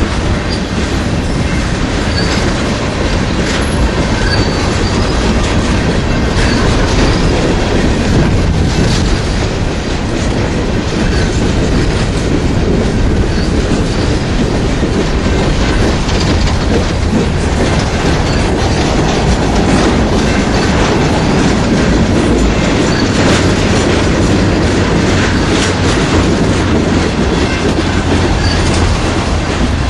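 Freight train of covered hoppers, tank cars and boxcars rolling past close by, its steel wheels making a steady, loud rumble and clatter on the rails.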